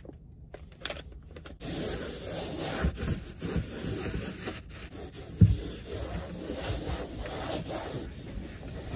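A disinfectant wipe rubbing back and forth across a car dashboard close to the microphone, a steady scrubbing that starts about one and a half seconds in. There is one loud thump about halfway through.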